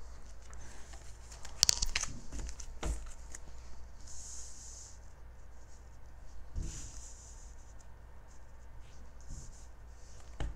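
Tarot cards being handled: soft rustling and sliding of cards, with a few light taps, the sharpest about two and three seconds in.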